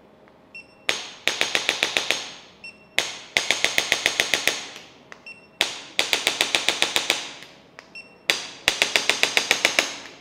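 Handheld electronic chiropractic adjusting instrument firing against the lower back: four rounds, each a short high beep, one click, then a rapid run of about ten sharp clicks at roughly eight a second.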